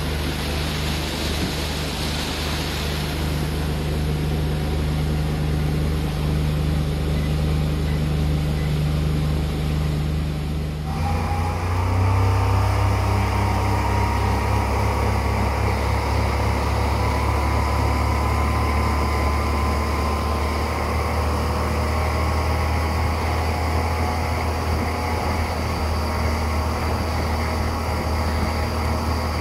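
Honda four-stroke outboard motor running steadily at speed as the boat planes, with a rush of water and wind. About eleven seconds in the sound changes abruptly to a deeper engine tone with a faint whine that rises slowly.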